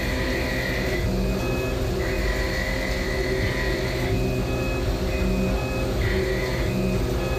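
CNC lathe running a turning cut with flood coolant spraying onto the tool and workpiece: a steady machine hum with a high whine that comes and goes in stretches of a second or two.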